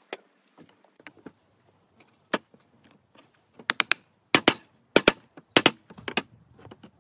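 Claw hammer striking nails into a small box of reclaimed wooden boards: a few single knocks, then a quick run of sharp strikes, many in pairs, in the second half.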